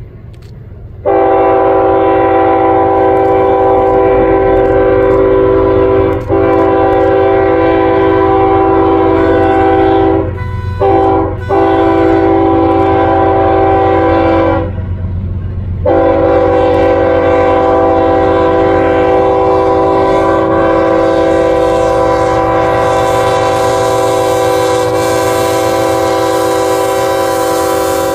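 Ferromex diesel locomotive's multi-chime air horn sounding a steady chord in long blasts, starting about a second in, with two quick breaks around ten seconds and a pause of about a second near fifteen seconds, then held on. A low engine rumble runs beneath, and a hiss grows louder in the second half.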